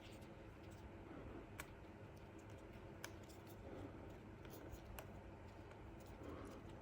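Faint, scattered clicks and light taps from the new battery and small parts of an opened iPhone 6s being handled and pressed into place, over near-silent room tone.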